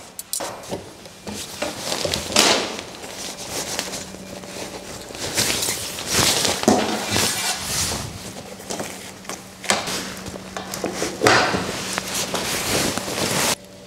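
Tension poles being fitted into an iKamper Skycamper 3.0 rooftop tent: irregular rustling of the tent fabric with knocks and clicks as the poles are handled and slotted in. A faint steady low hum runs under most of it.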